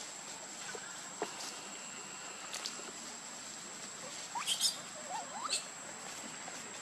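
Baby long-tailed macaques squeaking and squealing: a few short rising squeaks in quick succession a little past the middle, over a steady high-pitched tone.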